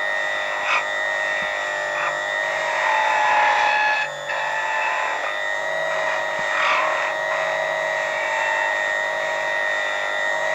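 Watchmaker's lathe running with a steady whine while a hand graver cuts the steel balance staff, adding a rasping scrape that comes and goes with the cut.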